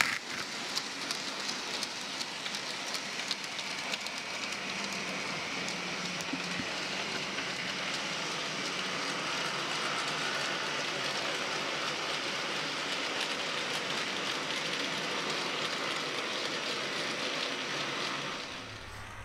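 Graham Farish N gauge Class 20 model diesel locomotive running on the track, hauling tank wagons and a brake van: a steady rushing rattle of motor and wheels on rail. A few sharp clicks come in the first couple of seconds, and the sound drops off shortly before the end.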